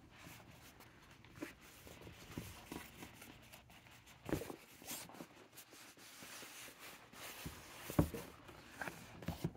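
Cloth dust bag rustling and rubbing as it is handled and pulled off a leather pen case, with two soft knocks, about four and eight seconds in.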